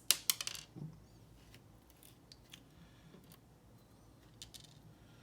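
Small metal clicks and light ticks of lock pins and tools being handled while a padlock's pin stacks are removed. A quick cluster of sharp clicks comes in the first second, then scattered light ticks.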